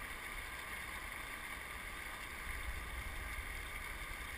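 Steady rushing of river water over nearby riffles, with wind buffeting the microphone as a low rumble.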